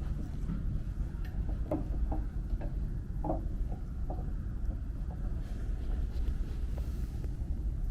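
Wind rumbling on the microphone, with short faint sounds scattered through it about twice a second.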